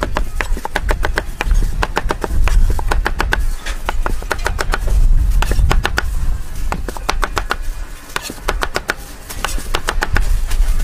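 Chef's knife slicing guava halves on a plastic cutting board: quick runs of blade taps on the board, several a second, with short pauses between fruits, over a low steady rumble.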